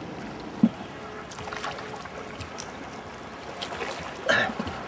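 Water washing around a Shaoxing wupeng (black-awning) boat as it is paddled along the lake, a steady low wash with faint clicks and a single knock about half a second in.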